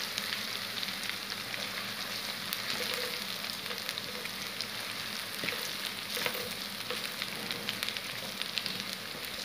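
Sliced onions with crushed ginger and garlic frying in hot oil in a metal karahi: a steady sizzle with crackles, while a wooden spatula stirs and scrapes through them.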